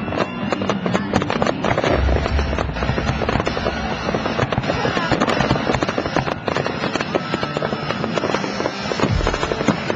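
Aerial fireworks crackling densely and continuously, with deep booming bursts about two seconds in and again near the end.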